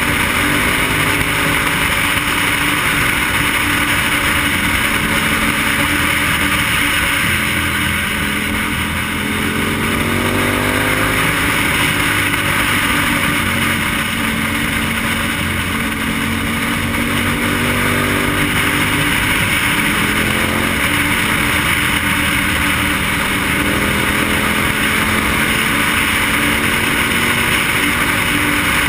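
KTM motorcycle engine running at road speed under heavy wind rush over the microphone. The engine note climbs several times as the rider accelerates and changes gear, most clearly about ten and twenty seconds in.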